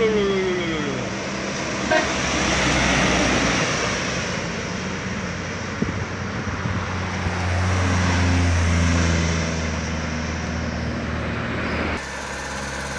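Diesel engines of sugarcane-laden trucks running hard as they climb past, over road noise, loudest about eight seconds in. A falling tone sounds in the first second.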